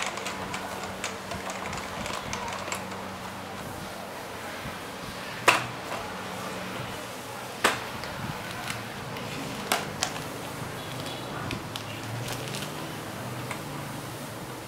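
Typing on a Topre-switch mechanical keyboard: a steady patter of soft keystrokes, with three much louder single key strikes about two seconds apart in the middle.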